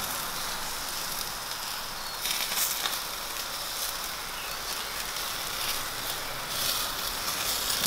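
Chicken skewers sizzling over hot charcoal: a steady hiss with a few short crackles and pops from the coals.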